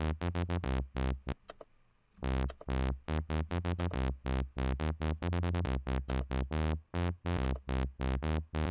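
Dubstep wobble bass from Image-Line's Harmor synthesizer: a looped C3 bass note whose filter frequency is swept by an LFO, chopping in a stuttering rhythm that speeds up and slows down from note to note as each note's velocity sets the wobble rate. It drops out briefly about a second and a half in.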